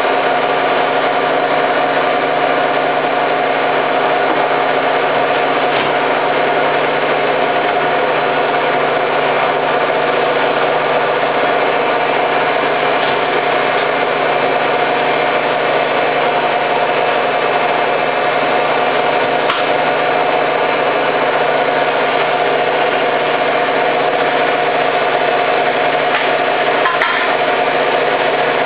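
Hoover Time Manager H130E washing machine spinning at speed, its motor giving a steady whine and hum that holds constant throughout. A couple of faint ticks come through late on.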